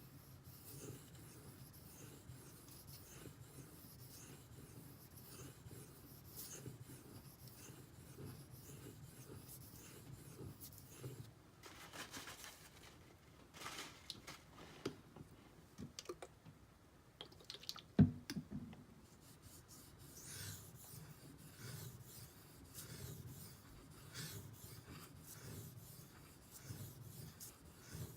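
Steel knife blade stroked back and forth on a 3000-grit Naniwa waterstone, a faint, steady scraping in repeated strokes. Around the middle the strokes pause for a few light clicks and one sharp knock about eighteen seconds in, then the stroking resumes.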